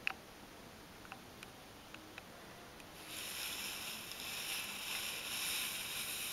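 A short click and a few faint ticks, then from about three seconds in a close, steady rustling hiss as a cat brushes against the microphone of the recording phone.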